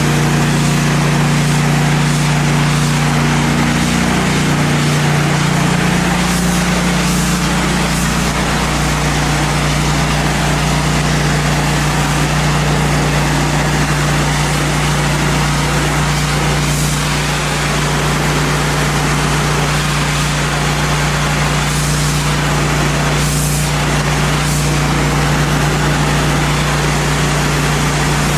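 Pressure washer engine running steadily under load, with the hiss of high-pressure water spraying on concrete. The engine note shifts briefly about four to five seconds in, then holds steady.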